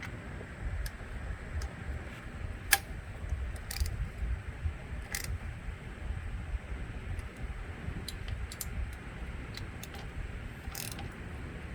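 Scattered metal clicks and clinks of hand tools and bolts as the engine's side-case bolts are hand-tightened, one sharper click about three seconds in, over a low steady rumble.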